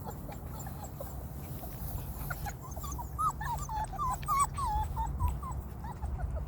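Five-week-old Bernese Mountain Dog puppies whimpering and whining: many short, high, wavering squeaks, coming thickest in the second half. A steady low rumble runs underneath.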